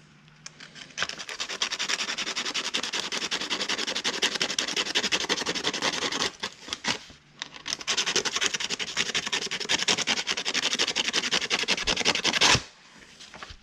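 Fast, steady scrubbing strokes, a brush worked back and forth over rusty metal, pausing briefly about six seconds in and stopping abruptly near the end.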